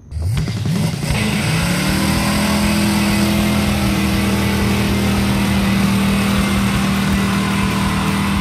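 A car engine revs up over about the first second, then runs at a steady high pitch.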